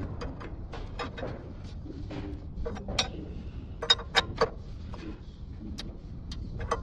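Irregular metallic clicks and taps of a wrench working an upstream oxygen sensor in an engine bay, several sharper knocks between about three and four and a half seconds in.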